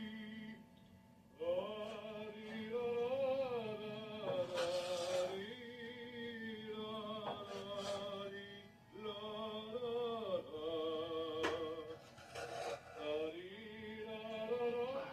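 Music with singing: long sung phrases with wavering, vibrato-laden held notes, broken by short pauses.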